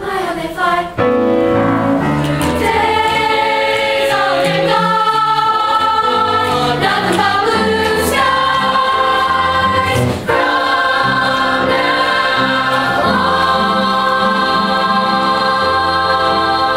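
Mixed youth choir singing in parts, holding long notes, with a brief gap between phrases about ten seconds in.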